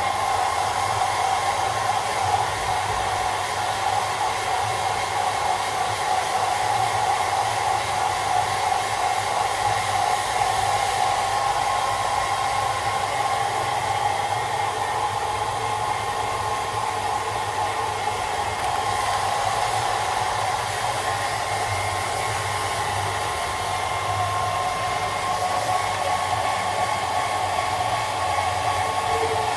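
Hair dryer running steadily, a constant rush of air with a steady motor whine.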